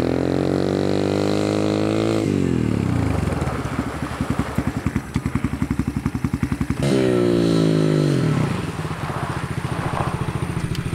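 Dirt bike engine accelerating with a rising rev, then dropping as the throttle is let off and the rear brake skids the tire to a stop. Near seven seconds in, a dirt bike revs up briefly, falls back and settles to an idle.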